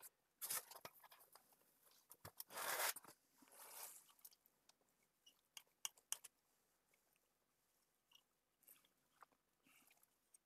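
Faint handling sounds from a solid-state relay being picked up and turned over in the hands: a couple of soft rustles early on, then a few light clicks about six seconds in, with near silence between.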